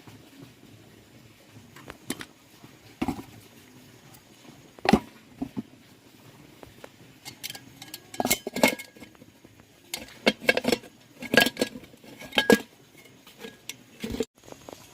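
Metal tools and parts clinking and knocking against each other in irregular sharp strikes, a few single ones early, then two busy runs of clinks in the middle and later part.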